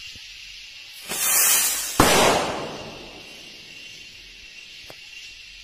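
A firework rocket fired from a hand-held PVC pipe launcher to scare monkeys: about a second of loud hissing as it flies off, then a sharp bang as it bursts, fading away over about a second.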